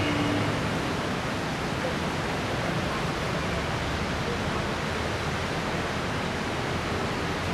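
Steady rushing of flood water and traffic, echoing in a road underpass, with a low rumble underneath.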